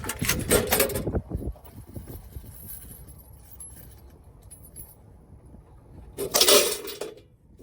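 Spent brass cartridge casings jingling and clinking as they are handled, in a flurry of clinks in the first second and another burst near the end.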